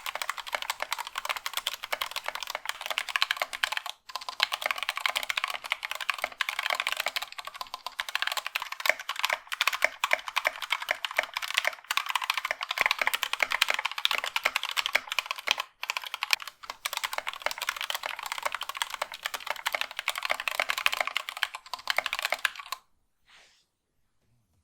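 Fast typing on a mechanical keyboard with stock Gateron Yellow-family linear switches, a dense run of keystroke clacks. It breaks off briefly about 4 and 16 seconds in, and stops about two seconds before the end.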